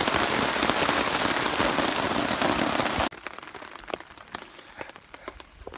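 Heavy rain falling on a nylon tarp overhead, a dense steady hiss that stops abruptly about three seconds in. After that only scattered single drops tap now and then.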